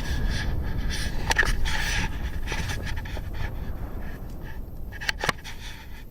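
A person breathing hard in repeated puffs close to the microphone, fading off after a few seconds, with scraping handling noise. Two sharp clicks about five seconds in.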